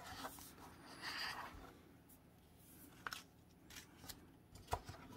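Faint scraping and rustling of a cardboard phone box and its packaging being handled, with a few light clicks in the second half.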